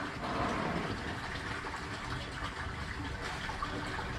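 Steady rushing of water into or over the fishing pond, with faint distant voices.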